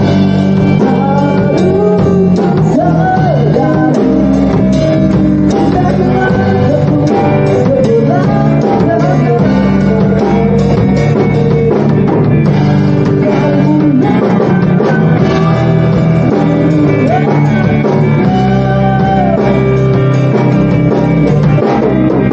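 Rock music with guitar, drum kit and a singing voice, playing steadily.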